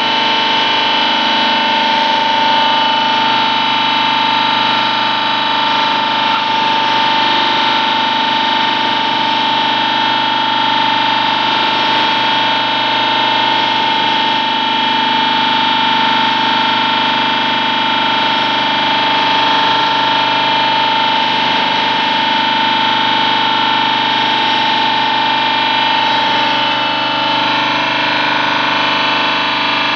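Corn-cob powder press machine running steadily: a loud, unchanging mechanical whine and hum made of many steady tones, with one strong high hum that holds at a constant pitch.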